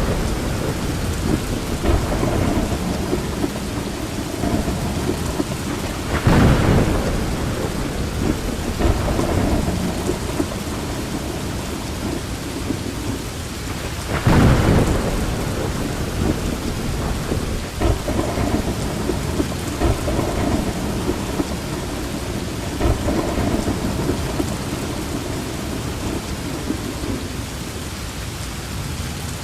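Steady rain with thunder, two louder sudden rumbles standing out about six and fourteen seconds in.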